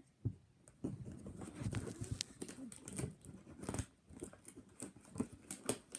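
Hands handling packaging close to the microphone: irregular rustles, clicks and knocks.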